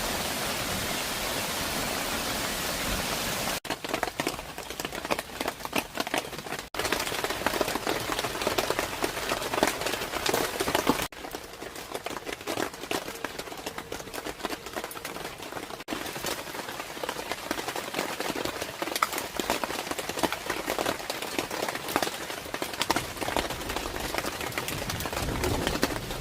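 Heavy rain falling steadily, with many individual drop hits. The sound changes abruptly a few times, at about 4, 7, 11 and 16 seconds in.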